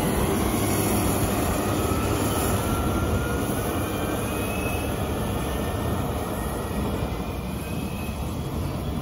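Caterpillar 950M wheel loader's diesel engine running as it plows snow with its front blade and wing: a steady rumble that slowly fades as the loader moves away.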